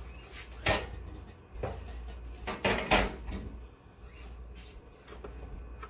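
Kitchen clatter of dishes and containers being handled: a sharp knock, another about a second later, then a short run of clinks and knocks about three seconds in, after which it goes quieter.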